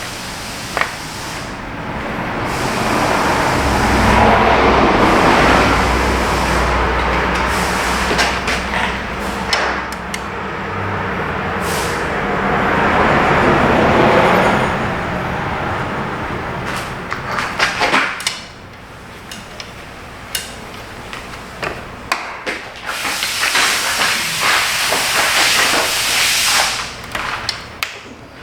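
Long swells of hissing noise that rise and fall three times, the first two over a low hum, with scattered sharp clicks and knocks between and after them.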